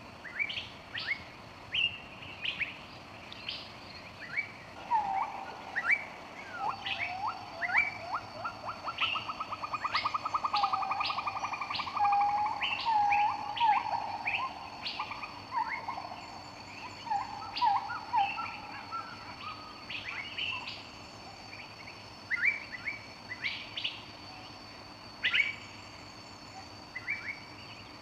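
Several birds calling: short high chirps throughout, with a fast rapid trill a quarter of the way in, over faint steady thin high tones from about seven seconds on.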